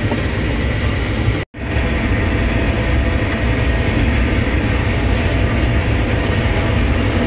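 Tractor engine and hay chopper running steadily, heard from inside the tractor cab, a dense low drone. The sound cuts out for an instant about a second and a half in.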